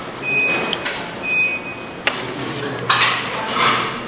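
Tableware clattering at a meal table: spoons and metal bowls clinking, with a sharp click about two seconds in and short noisy rustles.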